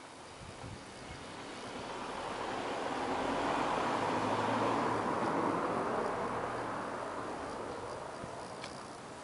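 A road vehicle driving past, its tyre and engine noise swelling to a peak about halfway through and then fading away.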